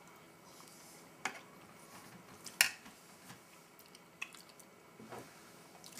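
Quiet eating sounds: a few short, sharp clicks spread over several seconds, the loudest about two and a half seconds in.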